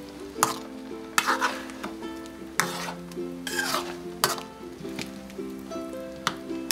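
A metal ladle stirring curry in an aluminium pan, with several sharp knocks of the ladle against the pan and wet scraping between them. Background music plays underneath.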